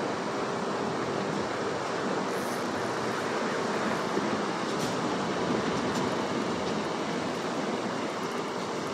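Steady rushing outdoor background noise with a faint low hum beneath it.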